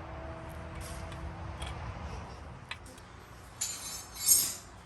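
Metal clinking and jingling: a few light clicks, then two bright jangling bursts near the end, the second the loudest.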